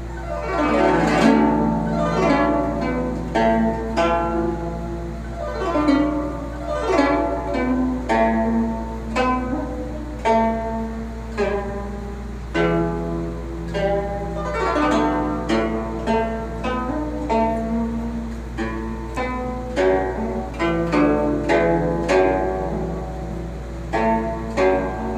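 Guzheng (Chinese zither) being played: plucked notes and melodic runs, with several sweeping glissandos across the strings, over a steady low hum.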